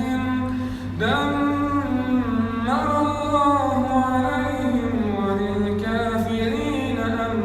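A man reciting the Quran in the melodic tajweed style, one continuous line of long held notes that slide up and down, with fresh phrases starting about one second and nearly three seconds in, over a steady low hum.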